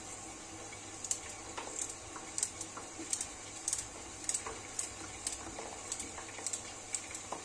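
A raw carrot being cut into chunks with a small knife held in the hand, a short crisp snap with each cut, about two a second, over a low steady hum.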